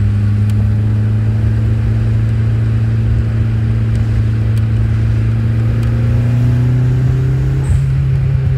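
Turbocharged 2.2-litre four-cylinder engine from a 1990 Dodge Daytona Shelby VNT, heard from inside the car while driving. The steady engine note rises slowly in pitch, then changes abruptly near the end as the throttle is lifted off boost into vacuum.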